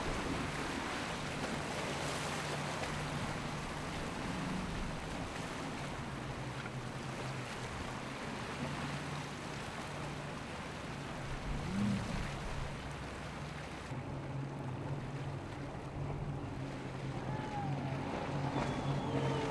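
Triple Yamaha outboard engines on a Hydra-Sport centre-console boat running at speed through rough waves: a steady engine drone under the hiss of waves and spray. About fourteen seconds in, the wave noise drops away and twin Suzuki outboards on another centre-console boat run steadily through calmer water.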